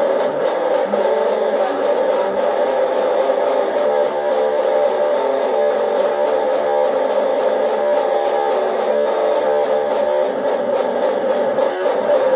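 Electric guitar being played without a break, a dense, steady-level sound.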